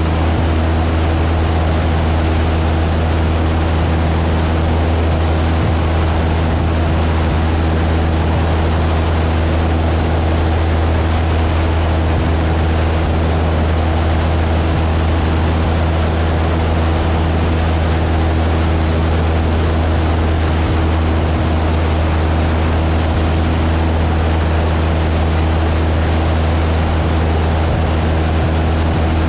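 Cessna 172's piston engine and propeller running steadily in flight, a loud unbroken drone with a strong low hum and a rushing noise over it.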